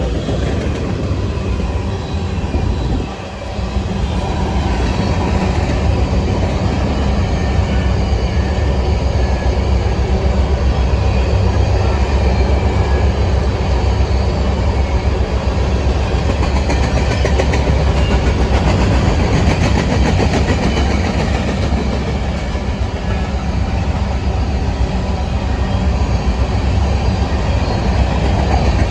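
Amtrak diesel passenger locomotive running steadily, a low engine drone.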